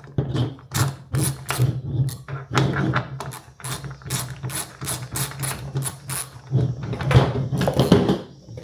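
Ratcheting clicks, several a second and uneven, with metal clatter as the nut comes off a reel mower's wheel and the wheel is pulled off, over a steady low hum.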